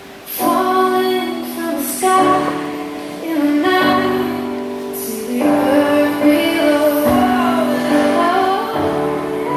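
A song with a female voice singing over sustained instrumental accompaniment, coming in loudly a moment after a quieter passage.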